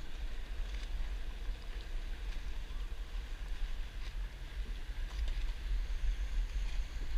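Water lapping and sloshing around a stand-up paddleboard, with a few faint splashes from paddle strokes, over a strong, steady low rumble.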